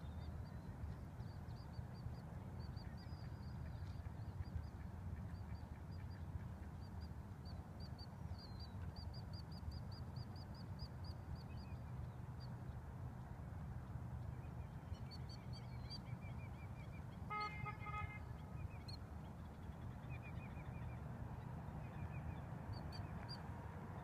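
Small birds chirping, with a quick trill of about five notes a second between about 8 and 12 seconds in, over a steady low outdoor rumble. About 17 seconds in, a waterfowl gives one short honking call.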